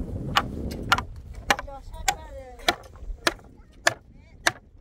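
A small hatchet chopping into a weathered wooden plank: a steady series of about eight sharp strikes, roughly one every half second.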